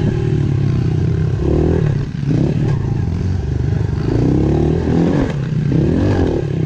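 Dirt bike engine running hard on a trail ride, its revs rising and dropping back again and again as the rider works the throttle.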